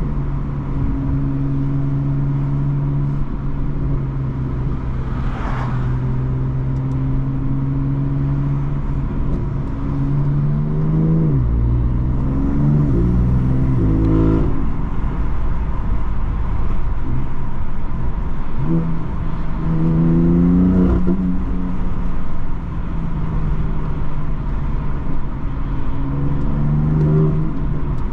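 BMW M3 F80's twin-turbo inline-six with an M Performance exhaust, driving at steady revs at first. About halfway through, the engine note dips, then climbs in steps broken by gear changes. It pulls up again twice more later on.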